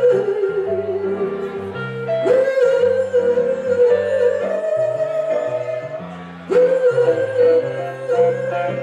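Live blues band music from hollow-body electric guitar and electric keyboard: a long held lead line that slides up into a new phrase twice, over a moving bass line.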